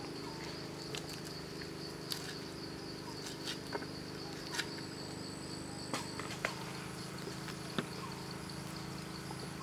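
Steady insect chirring with a low steady hum underneath, broken by scattered small clicks and snaps as a baby crocodile carcass is skinned and pulled apart by hand on a wooden chopping board.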